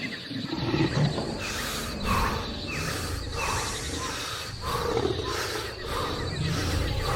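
Jungle soundscape of wild animal calls: a series of short calls falling in pitch, repeating every half second or so over a low rumble.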